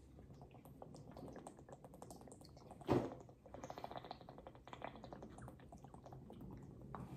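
A person drinking from a large plastic water jug in long, steady gulps, with quick wet swallowing clicks and water sloshing inside the bottle. One louder gulp comes about three seconds in.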